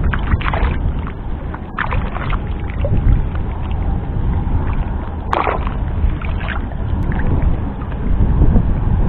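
Water sloshing around a person wading chest-deep in a pond, over a steady low rumble, with several short splashes; the clearest comes a little past halfway.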